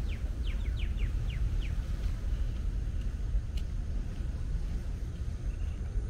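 Steady low wind rumble on the microphone, with a bird calling a quick run of six or seven short falling notes in the first two seconds.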